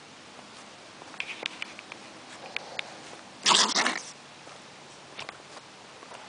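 A pet lets out one short, loud, breathy burst about three and a half seconds in, after a few faint clicks.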